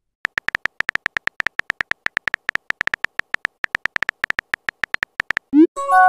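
Synthetic keystroke beeps from a texting-story app, one short beep per typed letter, about eight a second. Near the end comes a quick rising swoop and then a chiming chord of several steady tones.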